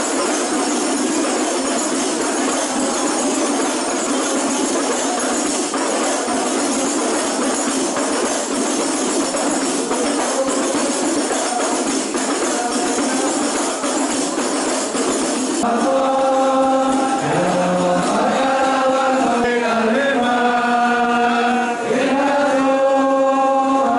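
A group of rebana frame drums with jingles playing a dense, continuous beat. About 16 seconds in the sound changes abruptly to voices chanting together in long held notes that step from pitch to pitch.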